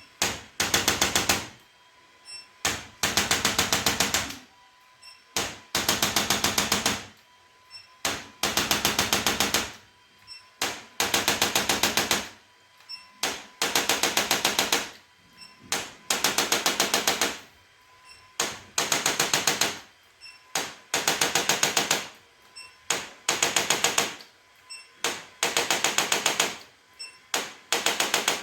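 A handheld machine making rapid mechanical tapping in bursts of about a second, repeating about every two and a half seconds, with a faint short beep by each burst.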